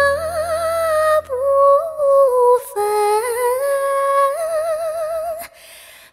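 Female singer holding the long closing notes of a Chinese ballad, a sustained vowel with wide vibrato over music. The low backing drops away about two seconds in. The voice carries on alone-ish to the end of the song and stops about five and a half seconds in.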